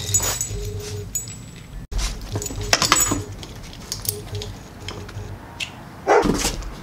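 Metal leash clips and hardware jingling and clinking as the leash is handled, in scattered light clicks. Near the end the dog gives a short, louder vocal sound.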